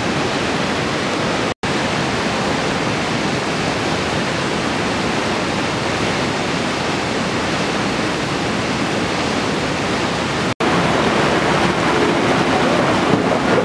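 Muddy floodwater rushing in a steady, continuous roar. The sound cuts out twice for an instant, and after the second break the rush of a flash-flood torrent pouring through a street comes back a little louder.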